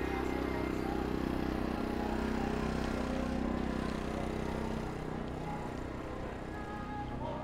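City street traffic: a motor vehicle's engine running close by, its low hum swelling about three seconds in and easing off later.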